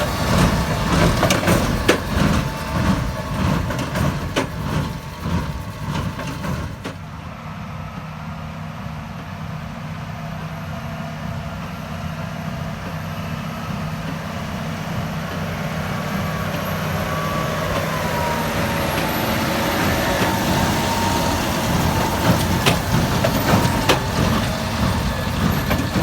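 A vehicle engine running steadily, with scattered knocks and rattles in the first seven seconds; the level drops suddenly about seven seconds in, then slowly builds again.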